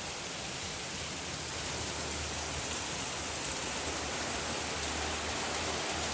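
Heavy rain falling steadily, an even rushing hiss with no breaks.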